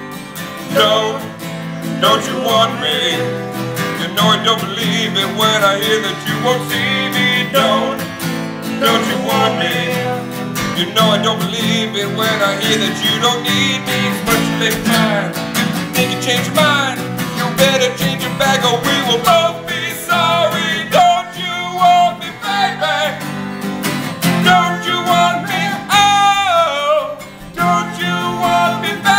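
Two acoustic guitars strummed steadily while two men sing along, in a casual live duet.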